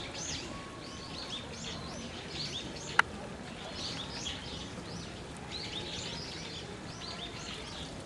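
Many small birds chirping in a busy, continuous chorus of short, high, overlapping calls. One sharp click about three seconds in.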